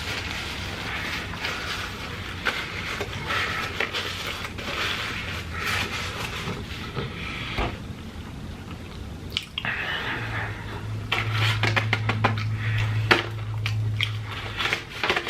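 Close-miked chewing: wet squelching and small clicking mouth sounds of a person eating fast food. A low steady hum comes in about two-thirds of the way through and lasts about four seconds.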